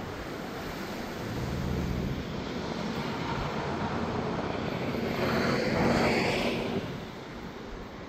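Traffic passing on the highway: engine and tyre noise builds from about a second in, is loudest around six seconds in, then drops away.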